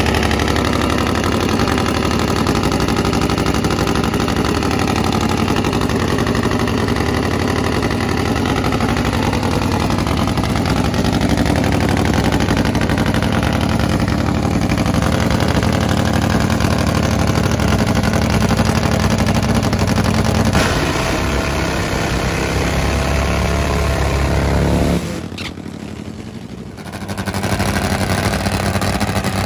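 Pro mod drag-racing motorcycles, one Harley-engined and one four-cylinder, running their engines loud and at a steady pitch. The sound changes about twenty seconds in, then drops away briefly near the end before coming back.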